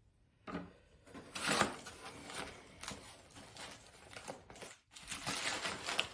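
Package wrapping being torn open and crinkled by hand, an uneven run of rustles and rips starting about half a second in.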